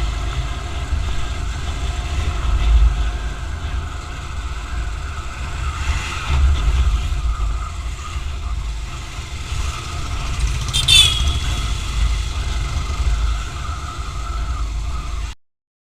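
A vehicle on the move, heard through an action camera's built-in microphone: a steady low rumble with wind buffeting and road noise. There is a brief high squeak about eleven seconds in, and the sound cuts off suddenly near the end.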